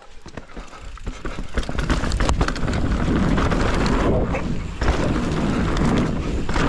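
Mountain bike riding fast down a dirt trail: wind rushes over the microphone and the tyres roll over dirt and rock, with frequent clicks and rattles from the bike. The noise builds over the first couple of seconds as the bike gathers speed, then holds steady.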